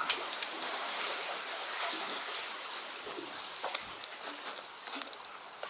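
Seawater washing and lapping among the concrete tetrapod blocks of a breakwater: a steady rushing wash with a few small clicks, easing off a little toward the end.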